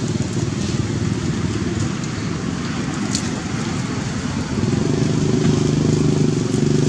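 An engine running steadily, a low even hum that grows louder about four and a half seconds in, with one sharp click about three seconds in.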